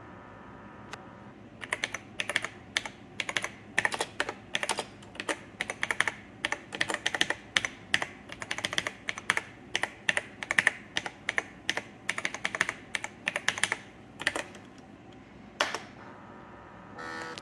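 Typing on the keyboard of a Zenith Data Systems laptop: a quick, uneven run of key clicks as a command line is entered, stopping about three quarters of the way through, with one last single keystroke about a second later.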